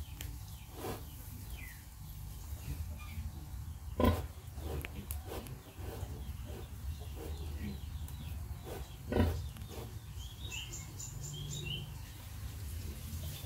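A nursing sow and her piglets making short, scattered pig calls, the loudest about four and nine seconds in, over a steady low hum. A quick run of high bird chirps comes near the end.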